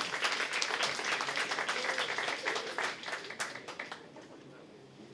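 Audience applauding, a dense patter of hand claps that thins out and fades about four seconds in.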